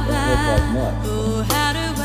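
Background music: a singing voice with a wavering held melody over steady bass and instruments.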